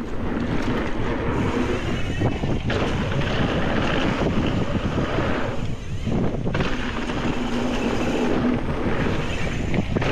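Wind buffeting the camera microphone while riding a mountain bike at speed: a steady rush of noise that dips briefly about six seconds in.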